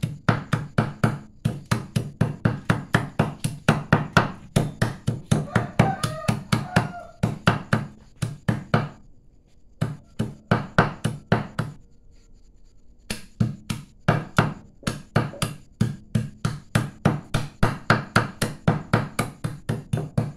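Steel cleaver rapidly chopping buffalo meat on a thick wooden tree-trunk chopping block, about four or five chops a second. The chopping breaks off for a few seconds about halfway through, apart from a short run of chops, then resumes at the same pace.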